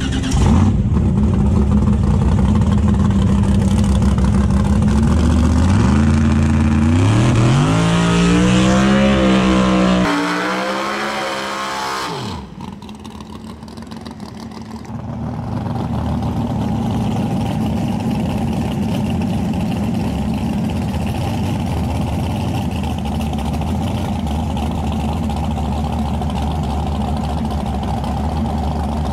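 Drag-race car engines at full volume. One engine is held steady at high revs, then revs up in a steep rising pitch and drops away around ten to twelve seconds in. After a short quieter spell, a turbocharged Fox-body Mustang's engine runs steadily through a tyre-smoking burnout.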